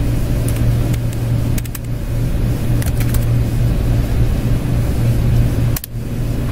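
Steady low hum over an even background hiss, with a couple of faint clicks; the noise dips out briefly near the end.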